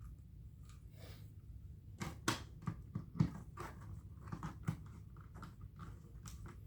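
Irregular sharp clicks and light knocks of plastic vacuum cleaner parts being handled and fitted together, starting about two seconds in after a quiet stretch.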